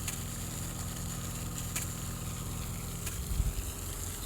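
Emergency fire pump running with a steady low mechanical hum, and a single low thump about three seconds in.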